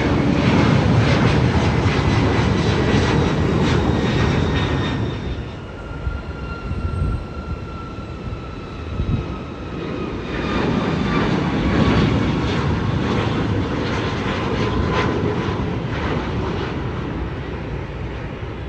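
Airliner engines running loud as a plane passes the airport, a deep rumble with a whine on top. It eases about six seconds in, with the whine slowly falling in pitch, then swells again from about ten seconds in.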